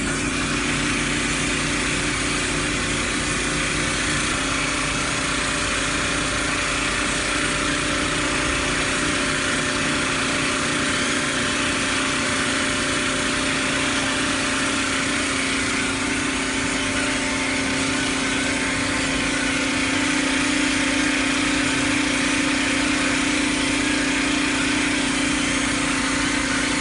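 Compressed-air yarn suction gun hissing steadily on a monofilament/multifilament extrusion line, over a continuous machine hum with a steady low tone; it grows slightly louder about twenty seconds in.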